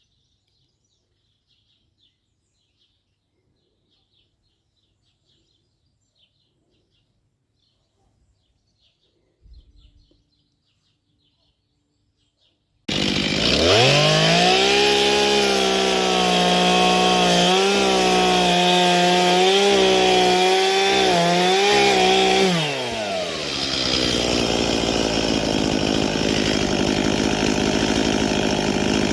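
Faint high chirping over near silence. About halfway through, an old two-stroke chainsaw bursts in and is revved up to a high, wavering speed for several seconds, then drops back to a steady idle.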